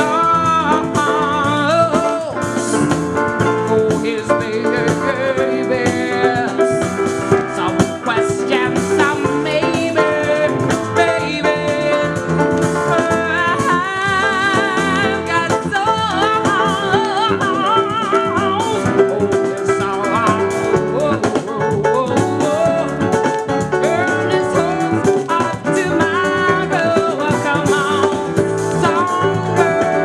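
1981 vocal jazz recording playing: a woman's voice singing a wavering melody with vibrato over a band of guitar, piano, bass and drums.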